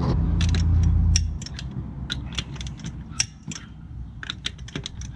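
A steady low hum that stops about a second and a half in, then a run of short metallic clicks and knocks from hand tools working on a car wheel's lug nuts.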